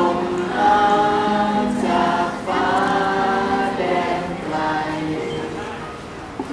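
A large crowd singing a slow song together in long, held notes.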